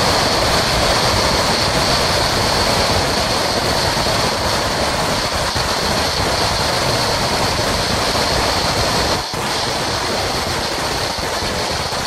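Sinturon ni Hudas firecracker string going off in one dense, continuous crackle of rapid pops that run together, with a brief dip about nine seconds in before it carries on.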